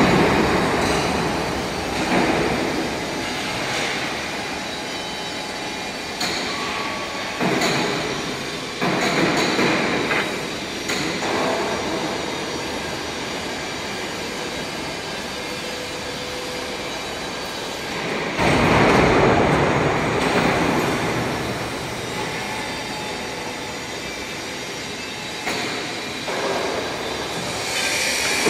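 Continuous machinery noise on a steel fabrication shop floor, with several louder swells lasting one to three seconds, the biggest about two-thirds of the way through.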